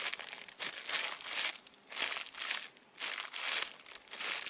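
Plastic packaging crinkling in the hands, in several bursts of rustling with short pauses between them, as a squishy toy's wrapper is handled.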